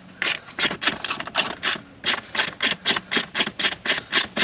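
Small ratchet, the Jeep's supplied hand tool, swung back and forth to back out a fastener holding a trim strip. Its pawl rasps in regular strokes, about four a second.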